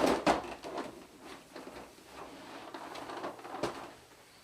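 Toy packaging trays and boxes being handled and moved: a few sharp knocks at the start, light rustling and small clicks, then another sharp click about three and a half seconds in.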